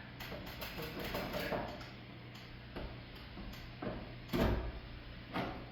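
Light, scattered knocks and clicks of a wooden floor joist being worked into a tight metal joist hanger, with one heavier thump about four and a half seconds in.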